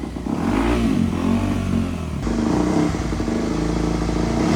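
Two-stroke dirt bike engine running just after a kick-start, the throttle blipped again and again so the pitch rises and falls every second or so.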